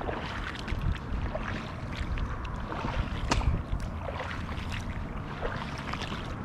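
Wading steps through shallow water and flooded marsh grass: irregular sloshing splashes and grass swishing, with some wind rumbling on the microphone.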